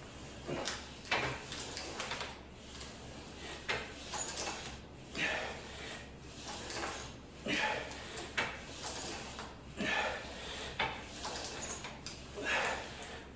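A person doing a set of ab crunches: a short noisy burst of effort or equipment movement with each rep, about one every second or so, repeated through the set.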